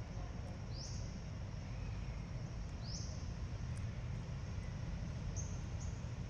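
Short, high chirping animal calls: two quick rising chirps about two seconds apart, then a few brief high peeps near the end, over a steady low background rumble.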